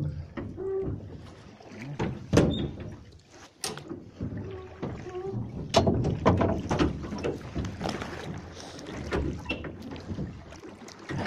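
Irregular knocks and thumps on a metal boat, with water splashing and lapping around the hull.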